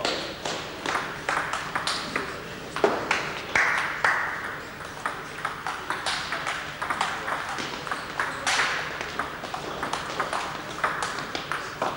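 Celluloid table tennis balls clicking off bats and the table in rallies: many sharp, irregular clicks, several a second.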